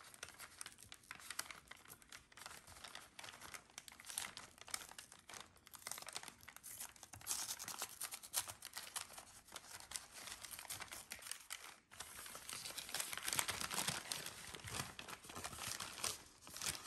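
A paper bag being pulled open and unfolded by hand, its paper crinkling and rustling steadily; the crinkling gets louder over the last few seconds.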